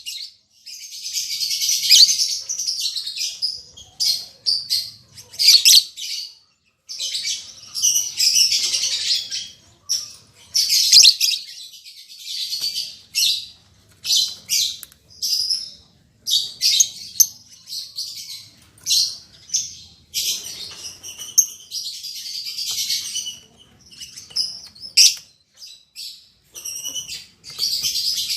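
A pair of lovebirds chattering: rapid, high-pitched shrill chirps in irregular bursts of half a second to two seconds, one after another with short gaps.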